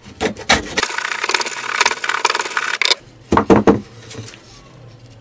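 Small wooden grooving plane cutting a groove along the edge of a softwood strip: a few knocks as it meets the wood, then a dense rasping scrape of the blade taking a shaving for about two seconds. A few sharp wooden knocks follow as the plane is put down on the bench.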